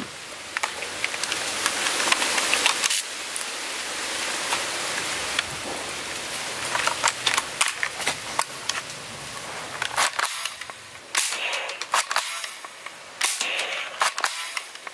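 Toy sniper rifle being handled and fired at plastic targets: a steady hiss with scattered clicks at first, then a run of sharp clicks and pops in the second half.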